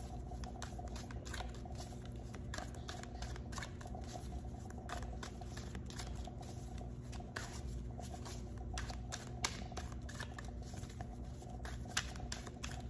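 A deck of tarot cards shuffled by hand, overhand, giving a long run of soft, irregular card flicks and taps, with a couple of slightly sharper taps in the second half.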